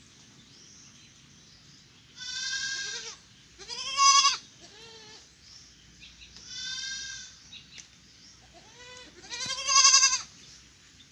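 Goat kids bleating repeatedly, about six calls, some high-pitched and wavering; the loudest come about four seconds in and near the end. The kids are noisy and complaining, not wanting to stay in the nursery pen.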